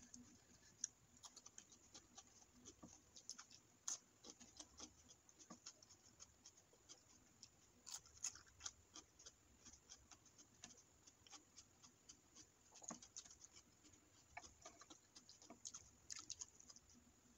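Quiet, close-miked eating with the fingers: a steady run of small wet clicks and smacks from chewing and licking the fingers.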